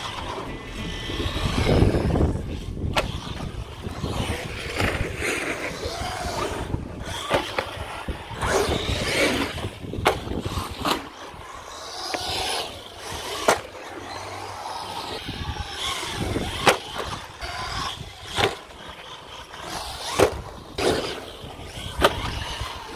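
Feiyue FY01 Fighter 1/12 brushed electric RC short-course truck driving over concrete skate-park ramps: the motor whine rises and falls with the throttle over the rumble of its tyres on the concrete. Several sharp knocks in the second half as it lands or hits the ramps.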